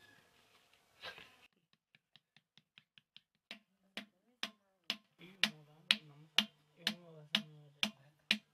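Wooden paddle beating an unfired clay pot held in the hand: a steady run of sharp knocks about two a second, light at first and louder from the middle on. A low steady hum sits under the later strikes.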